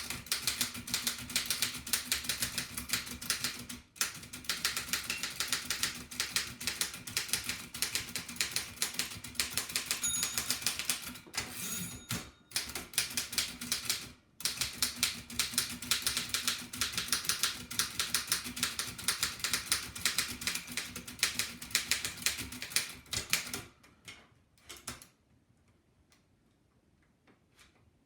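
An 1894 Densmore No. 1 typewriter being typed on fast, a rapid, continuous clatter of key and typebar strikes with a few brief pauses. The typing thins to a few scattered strikes near the end and then stops.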